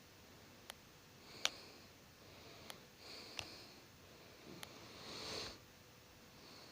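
Faint indoor sounds: five sharp clicks or ticks spread a second or so apart, the loudest about a second and a half in, with soft breathy sniffs or breaths between them, the longest near the end.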